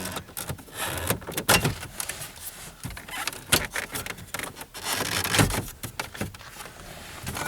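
Irregular knocks, clicks and rattles of hands and tools working on a car's dashboard trim, with a few louder knocks.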